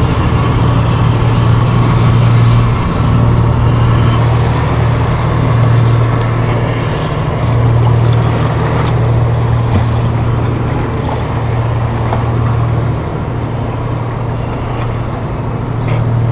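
A small sailboat's motor running steadily under way, a constant low drone. The wind has died, so the boat is motoring instead of sailing.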